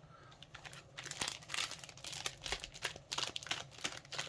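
Foil trading-card booster packs crinkling as they are handled, in a run of quick crackles that starts about a second in.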